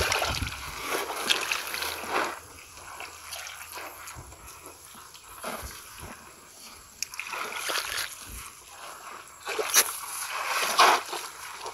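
Shallow muddy water splashing and sloshing around bare feet and legs wading through a ditch, in irregular bursts, loudest at the start and again in the last few seconds.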